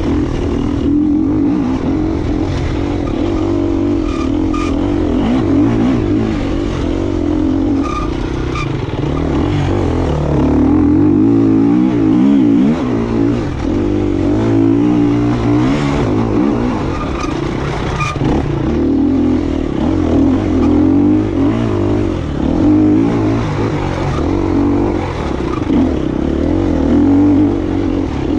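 KTM EXC 250F's single-cylinder four-stroke engine running under load on an enduro ride, its pitch rising and falling continuously with the throttle. Occasional sharp knocks cut through.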